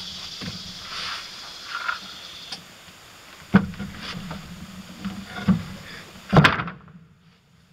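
Several irregular knocks and bumps over a steady low hum and a high hiss, the loudest about two-thirds of the way in, after which the hiss cuts out and it goes much quieter.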